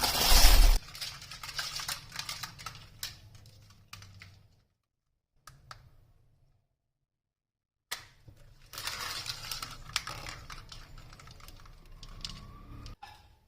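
A loud, noisy burst at the very start, then a run of light clicks and taps. A silent gap falls in the middle, after which the clicking comes back and stops abruptly near the end.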